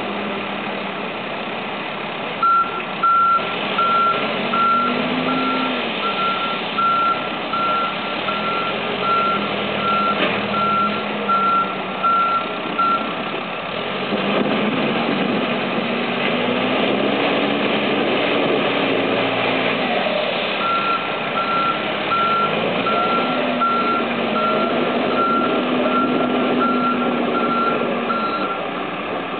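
Heavy diesel machinery working: a backhoe loader and an articulated dump truck running, the engine note rising and falling several times as it revs under load. A reversing alarm beeps steadily, a bit under two beeps a second, for about ten seconds from early on and again for several seconds near the end.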